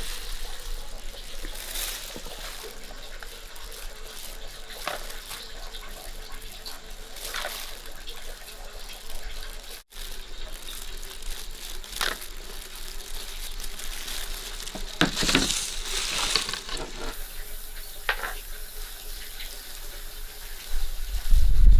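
Running or pouring water, with scattered light knocks of utensils or containers.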